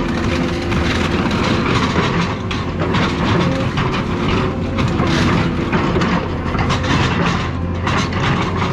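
Heavy demolition machine's diesel engine running steadily under load, with dense clattering and grinding of car-body metal being torn and crushed, and a few brief metallic squeals.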